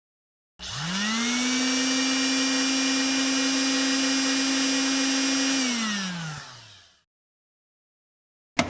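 Electric hair dryer switched on: its motor spins up to a steady whine over rushing air, runs for about five seconds, then winds down and stops when switched off.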